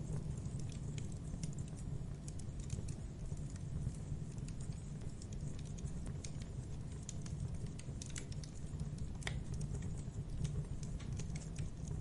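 Campfire burning: a steady low rumble from the flames with scattered sharp crackles and pops from the burning wood, several coming close together about two-thirds of the way through.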